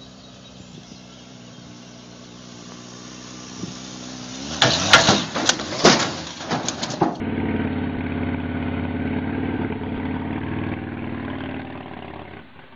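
A Suzuki sport bike's engine runs steadily and grows louder as it comes up the ramp, then a run of loud bangs and clatter as the bike lurches into the pickup's bed. After a cut, another motorcycle engine idles steadily.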